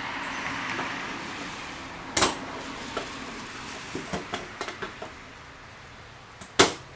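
Sheet metal and tools being handled on a workbench: a loud metallic knock about two seconds in, a run of lighter taps and clinks, and the loudest knock near the end, over a soft hiss that fades in the first couple of seconds.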